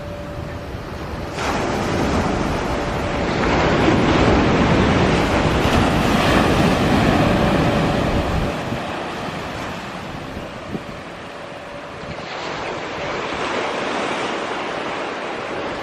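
Steady rushing, wind-like noise that swells over a few seconds, eases off, and rises again near the end, with a faint steady hum underneath.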